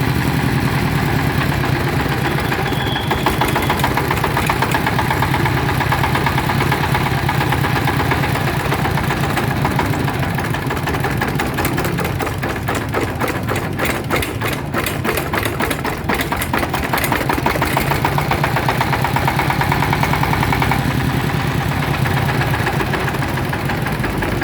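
Yamakoyo ZS1130G single-cylinder diesel engine running steadily with a pulsing diesel knock.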